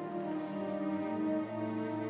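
Quiet, slow background music of long held notes, with a low note coming in about half a second in.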